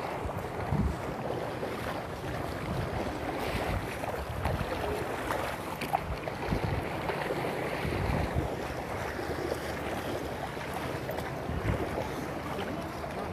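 Floodwater from an overflowing river rushing past in a steady, churning wash.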